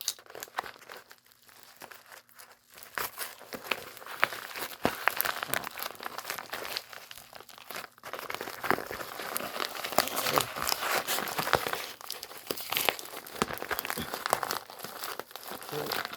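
Hands unwrapping tightly wrapped packaging: crinkling and rustling in irregular crackles, sparse at first and busier from about three seconds in.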